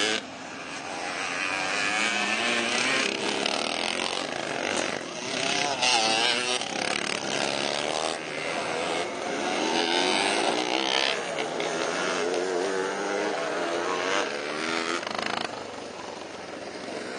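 Vintage motocross bikes racing on a dirt track, several engines revving up and down in pitch as they pass. The sound swells as a bike goes by close, then drops back near the end.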